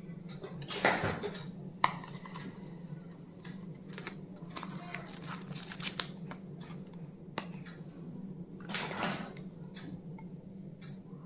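Small stationery items and their packaging being handled: scattered light clicks and taps, with two short rustling scrapes about a second in and near nine seconds, over a steady low hum.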